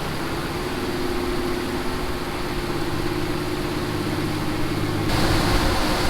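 A large engine running steadily with a constant hum. About five seconds in the sound changes abruptly and turns brighter and hissier.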